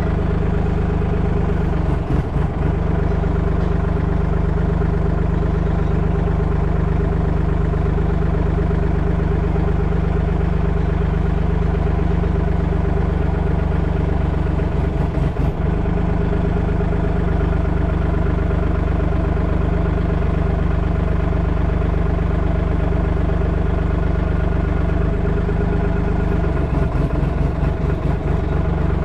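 Compact excavator's small three-cylinder diesel engine running steadily at a constant speed, with a few brief low flutters about 2 seconds in, midway, and near the end.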